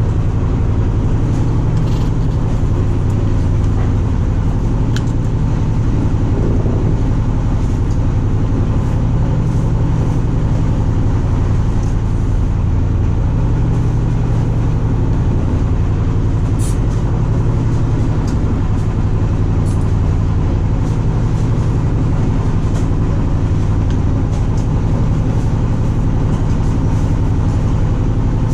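A boat's engine running steadily with a constant low drone, with a few faint ticks and knocks.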